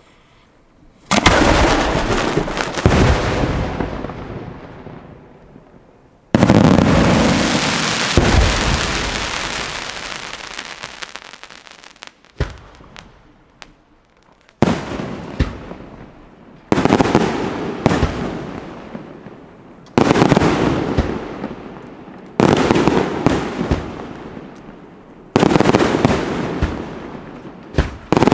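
Aerial fireworks bursting overhead: about eight loud bangs a few seconds apart, each followed by a long crackle that fades away.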